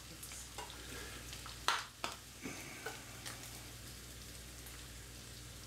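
Bacon and mushrooms sizzling faintly in a frying pan on an electric hotplate, with one short sharp noise about a second and a half in.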